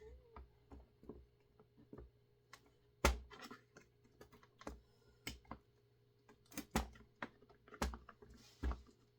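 Irregular clicks and knocks of a chainsaw's plastic housing and parts being handled and worked at by hand, the sharpest knock about three seconds in and a cluster of them near the end.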